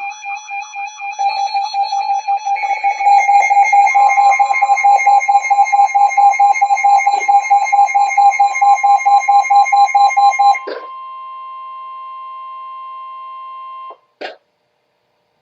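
Layered electronic emergency alert beeping, about three to four beeps a second, getting louder about a second in and again a little later, with a steady alert tone joining it. The beeping stops two-thirds of the way through, leaving the steady tone on its own for about three seconds. It cuts off with a short pop, then silence.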